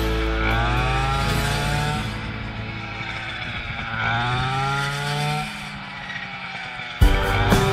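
Small petrol engine of a handheld straight-shaft rice cutter revving up twice, its pitch rising about half a second in and again about four seconds in, then dropping back. Near the end the sound cuts abruptly to music.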